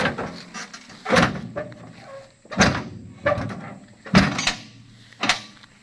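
A dump truck's steel tailgate being shut and latched: a series of sharp knocks and clanks about once a second, with rattling between them.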